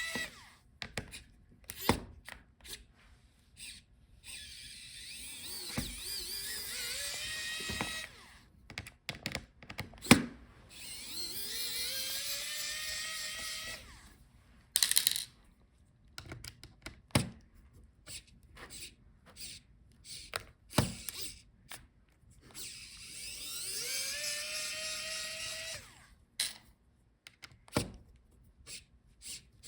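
Electric screwdriver backing out laptop hinge screws: several short runs of a couple of seconds each, each starting with a rising whine, with small clicks and taps of the tool and screws in between.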